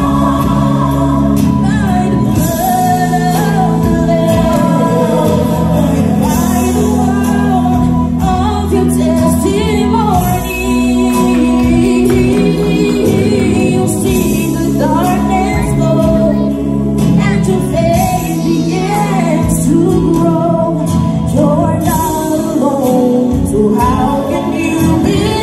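A woman singing a gospel song through a microphone, her voice rising and falling over held keyboard chords and a drum kit with cymbals.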